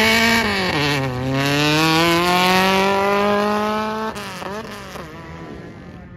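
A drag-racing vehicle's engine at full throttle down the strip. Its pitch climbs, drops at an upshift about a second in, then climbs again before fading away after about four seconds.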